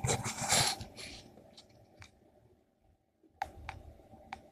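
A short rustle as an earpiece is pressed against the microphone, then sparse, sharp clicks: crackling picked up by a homemade crystal radio from the spark of a mains switch and heard through its earpiece.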